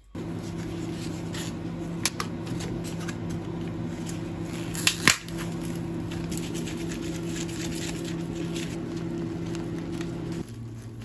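Plastic food packaging handled: a natto pack opened and its sauce packet torn, with crackles and sharp clicks loudest about two and five seconds in, then chopsticks stirring the sticky natto. Throughout is a steady appliance hum, which drops to a lower tone near the end.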